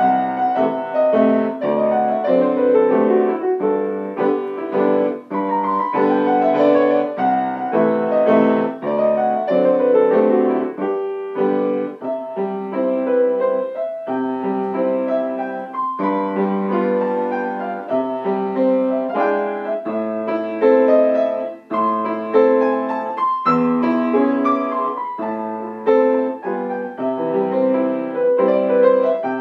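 Acoustic grand piano played solo: a flowing piece with continuous quick runs of notes sweeping up and down the keyboard over a lower accompaniment.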